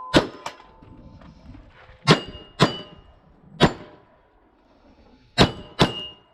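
About six pistol shots fired at an irregular pace, two of them in quick pairs. Steel targets ring with a high, steady tone after some of the hits.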